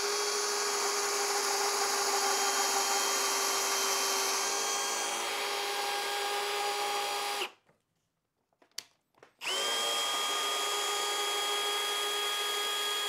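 Hilti SFE 2-A12 12-volt cordless drill driver, fitted with a right-angle head, drilling into a pine board. The motor runs at a steady whine for about seven and a half seconds, stops, then runs again for about four seconds.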